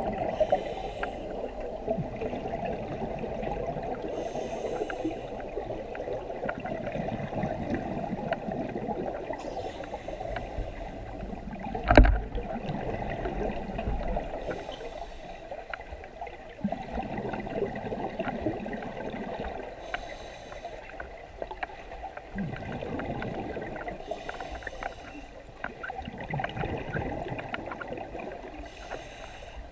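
Scuba regulator breathing underwater: a hissing breath about every five seconds, with bubbling of exhaled air between. One sharp knock about twelve seconds in.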